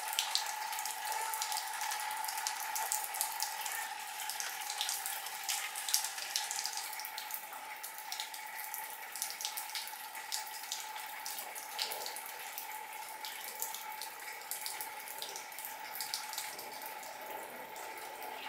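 Rainwater dripping and pattering off wet garden foliage: many small drops ticking over a steady light hiss, with a faint steady hum underneath.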